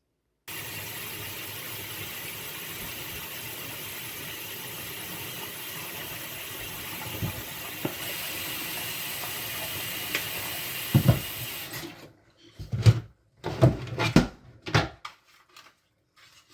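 A steady hissing noise starts suddenly and cuts off after about eleven seconds. It is followed by a few sharp knocks and clatters of plastic as the washing machine's detergent dispenser drawer is handled.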